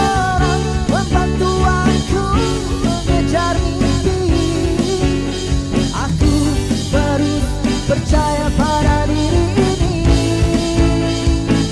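Live pop-rock band music: electric bass, acoustic-electric guitar and drum kit playing steadily, with a male lead voice singing over it at times.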